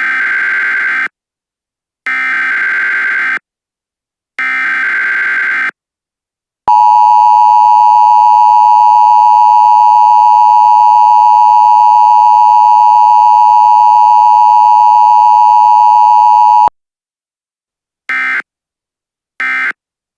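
Emergency Alert System tones: three loud bursts of digital header data about a second each, then a steady attention tone held for about ten seconds that cuts off sharply. Two short end-of-message data bursts come near the end.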